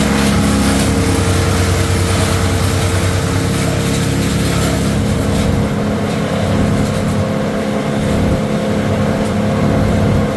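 An engine running steadily at a constant speed, loud, with a steady hum.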